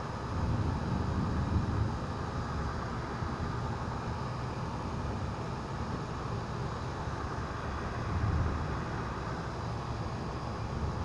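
Thunderstorm noise: a steady low rumble with a lighter hiss above it, swelling briefly about half a second in and again near eight seconds.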